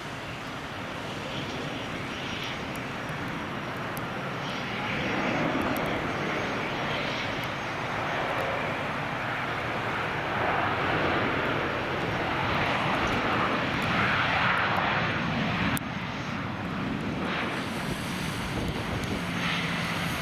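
Jet engine noise of a Boeing 737-800 with CFM56 turbofan engines, landing: a dense, steady sound that swells louder over several seconds, then drops abruptly about three-quarters of the way through.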